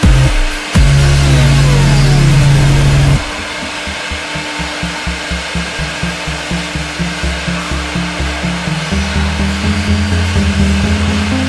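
Electronic dance music: sustained bass notes under a falling sweep, then an abrupt drop about three seconds in to a quieter, regular pulsing beat of about three beats a second.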